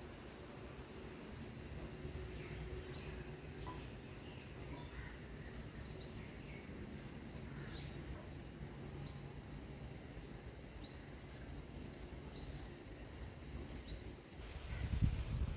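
Garden ambience: faint scattered bird calls over a steady, high-pitched insect drone. A low rumble rises near the end.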